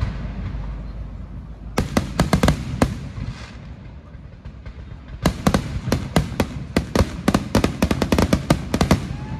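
Aerial fireworks bursting overhead with sharp bangs and crackles: a cluster of reports about two seconds in, a short lull, then a rapid, dense run of bangs from about five seconds in.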